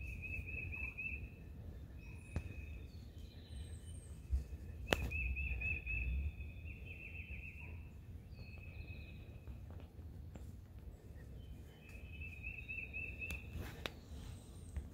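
Spring woodland ambience: a short, high trill repeating every couple of seconds over a low rumble, with a sharp click about five seconds in.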